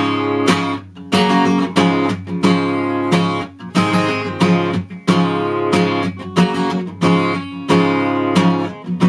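Solo acoustic guitar strumming chords in a steady rhythm, each stroke ringing into the next, with no voice.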